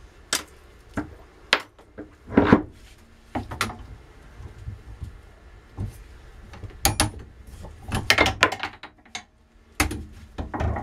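Irregular metallic clinks and knocks from steel rammers, the aluminium tube holder and a one-ton arbor press being handled and worked on a bench, some with a brief high ring. The busiest cluster comes about eight seconds in.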